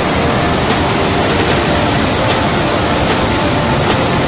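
Montmorency Falls' heavy water cascading over the crest, a steady rushing roar.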